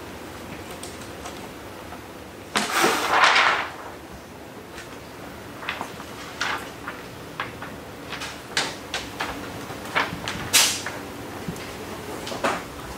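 A sheet of XPEL Prime XR Plus ceramic window tint film rustling and crackling as it is unrolled and spread across a car windshield. About three seconds in there is one loud rustle lasting about a second, followed by scattered short crackles and taps.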